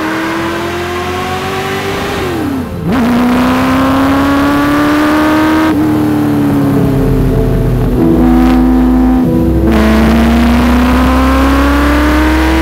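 Ford GT40 Mk1's V8 engine pulling hard under acceleration. Its pitch climbs steadily, drops sharply at an upshift about two and a half seconds in, then climbs again.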